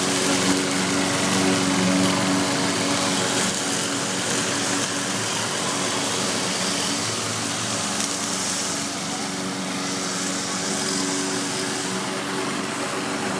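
Lawn mower engine running steadily, its droning tone easing slightly in the middle and strengthening again near the end.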